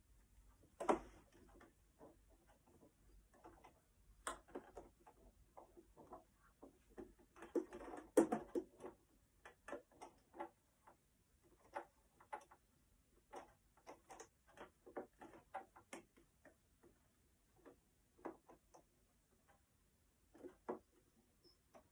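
A small sewing machine ticking and clicking irregularly as it stitches slowly through fabric, faint, with a busier patch of clicks and rustling a third of the way in.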